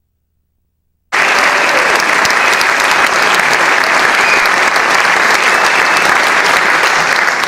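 Audience applause: dense clapping that cuts in suddenly about a second in and holds steady.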